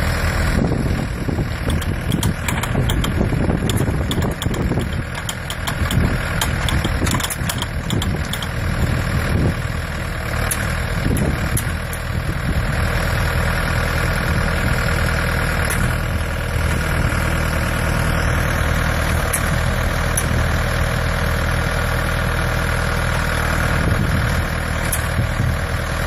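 A tractor engine idling steadily. Irregular light clicks and knocks sound over it during roughly the first twelve seconds.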